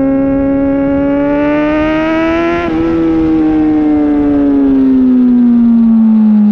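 Kawasaki Ninja ZX-6R inline-four engine at high revs. The note climbs for the first couple of seconds, breaks briefly just before 3 seconds, then falls steadily as the revs drop.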